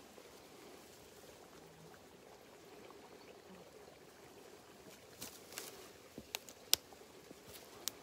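Quiet lakeside outdoor ambience, a faint steady hush, broken in the second half by a scatter of short, sharp snaps and clicks, the loudest about two-thirds of the way through.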